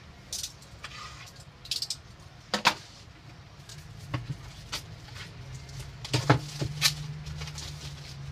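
Small cardboard product box handled and opened by hand: a string of taps, scrapes and papery rustles, the loudest about two and a half seconds in and a cluster just after six seconds. A low steady hum sits underneath and grows louder from about five seconds in.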